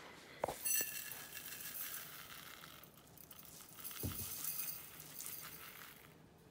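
Red plastic Folgers coffee canister being handled and tipped over a mug: a sharp click about half a second in, then a dry rustle of ground coffee sliding out, and a dull knock about four seconds in.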